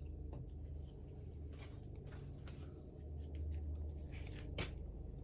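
Faint handling sounds of a paintbrush and plastic tub of wet Satanite refractory paste, light scrapes and clicks, with one sharper click a little before the end, over a steady low hum.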